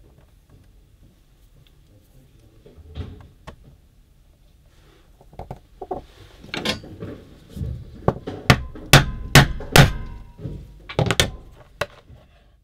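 A split-head mallet striking a metal hand-setting tool about a dozen times, driving a closure fastener through vegetable-tanned leather onto a poly board. The blows start about five seconds in, come in an uneven run and are heaviest near the middle.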